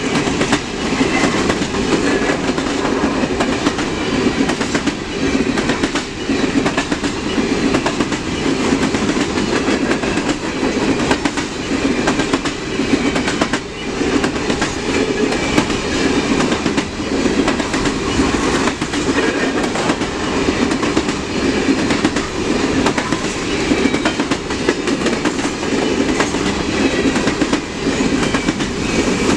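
CN freight train's cars rolling past in a steady rumble, with wheels clicking over the rail joints now and then.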